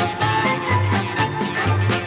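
Background music with a bouncing bass line and no singing.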